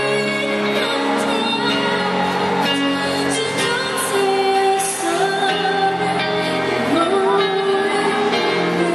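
A woman sings live into a handheld microphone over instrumental backing music, holding some notes long.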